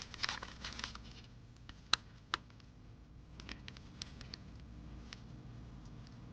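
Small hand-work noises on a plastic zip tie being worked with a pick: a short rustle at first, two sharp clicks about two seconds in, then scattered light ticks.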